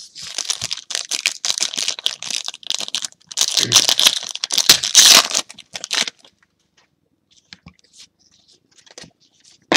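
Foil wrapper of a trading card pack being torn open and crinkled: a dense crackle for about six seconds, loudest a little past the middle, then only a few faint ticks.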